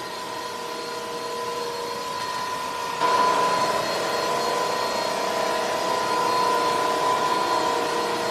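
Dibea DC22 cordless wet-dry vacuum cleaner running with a steady motor whine. About three seconds in it gets noticeably louder, as if switched to a higher power setting or put to work on the floor.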